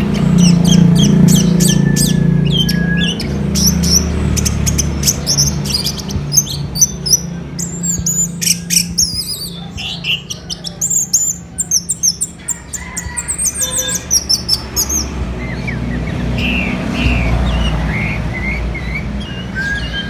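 Orange-headed thrush singing a fast, varied run of high chirps and whistles, turning to softer, lower notes for the last few seconds, over a steady low hum.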